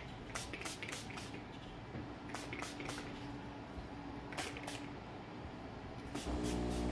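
Hand pump spray bottle of heat protection spray squirted onto hair in short spritzes, in quick groups of two or three. A low steady hum starts near the end.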